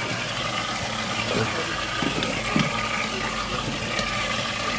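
A machine running steadily: an even hum and hiss with a faint steady whine, broken by a few faint short clicks.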